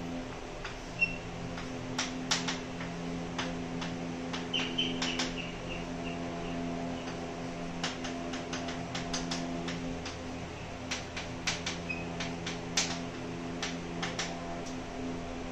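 Chalk tapping and scratching on a blackboard while writing, with irregular sharp clicks and a few brief squeaks, over a steady low hum.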